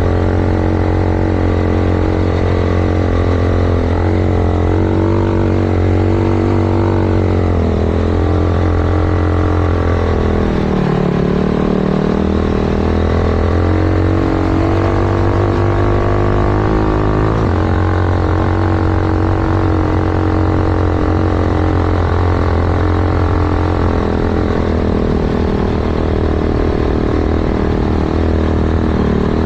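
Yamaha YFZ450 quad's single-cylinder four-stroke engine, bored out to 501cc and fitted with a sport exhaust, running hard under load in soft sand. The revs rise and fall, dropping sharply about ten seconds in and picking up again a couple of seconds later.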